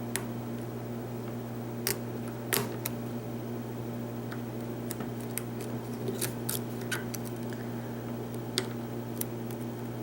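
Lock pick and tension wrench working the pins of a pin-tumbler lock: scattered small metal clicks and ticks at uneven intervals, the loudest about two and a half seconds in, over a steady low hum.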